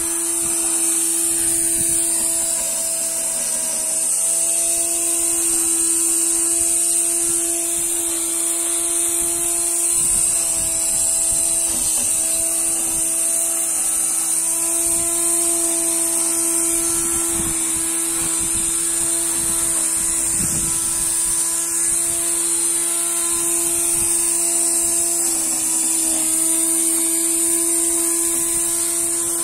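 Homemade electric grass cutter built on an angle grinder motor, running steadily with a hum and a high whine.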